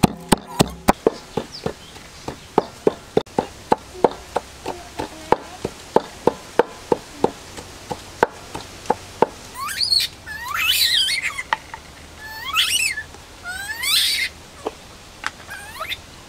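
Wooden pestle pounding in a wooden mortar, about two to three dull knocks a second, which stop about nine seconds in. Then come several loud, high-pitched animal calls that swoop up and down in pitch.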